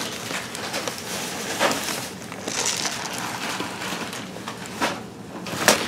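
Rustling and scraping as a cardboard oats canister is lifted and turned over among loose spilled oats and bags, with a few sharp clicks.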